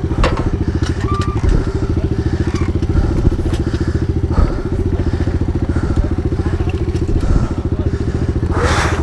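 Small dirt bike engines idling steadily at a fast, even putter, with no revving. A short rush of noise comes near the end.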